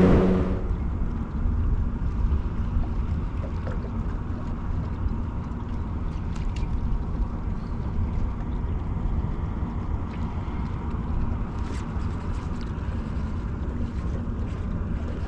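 A boat's outboard motor drops from running speed to a low idle about half a second in. A steady low rumble of the idling motor follows, with wind on the microphone and a few faint clicks.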